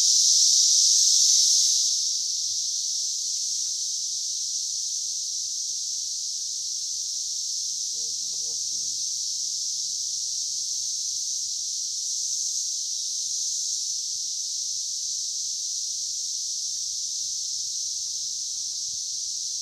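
Dense chorus of Brood X periodical cicadas: a steady, high-pitched whining drone of countless insects singing together, a little louder in the first two seconds.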